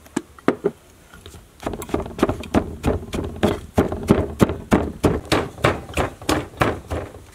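Wooden pestle pounding chili, sugar and seasoning into a paste in a large wooden mortar: a few light knocks, then from about a second and a half in a steady run of dull strikes, about three a second.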